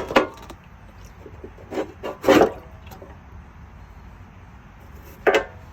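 Rust-remover liquid sloshing and splashing in a bin, in a few short splashes over the first two and a half seconds and one more near the end.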